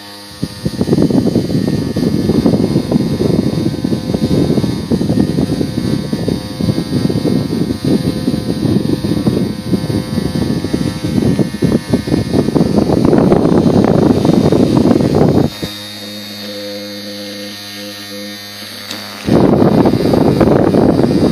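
Small battery-powered toy fan running. Its airflow buffets the microphone as a loud, ragged rumble. About fifteen seconds in the rumble breaks off and only the motor's steady, whiny hum is heard, until the rumble returns near the end.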